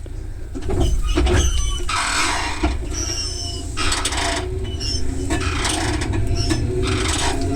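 Electric commuter train heard from on board while moving: a low rumble of wheels on track with stretches of rushing noise, several short high-pitched squeals, and a low steady motor hum.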